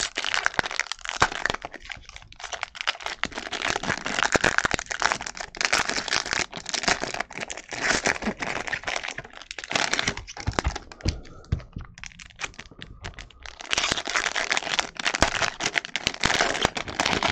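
Foil wrappers of baseball card packs crinkling and crackling as the packs are torn open and the cards pulled out, with a quieter stretch about two-thirds of the way through.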